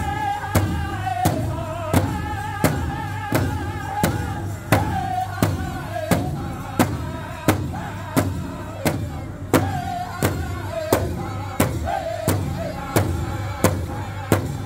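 Powwow drum group: several men singing together in high voices over a steady beat struck in unison on one large drum, about three strokes every two seconds, for a Men's Chicken Dance song.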